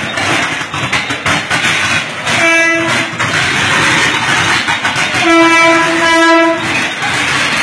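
Horn of an approaching Mumbai suburban EMU local train: one short blast about two and a half seconds in, then a longer blast of about a second some five seconds in, over a steady rushing noise of rain and the moving train.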